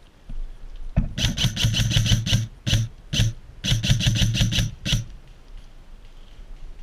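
Airsoft rifle firing: a rapid full-auto burst of about a second, starting about a second in, then two single shots, a second rapid burst of about a second, and one last single shot about five seconds in.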